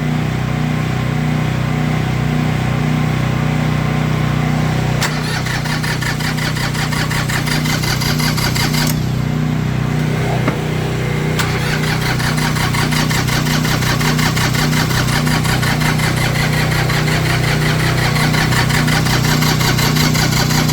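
Tractor diesel engine idling just after a cold start, with a steady low drone and a fast clatter on top. It is not yet running smoothly: its glow plugs are faulty, and warm air from a hair dryer at the intake is being used to get it going.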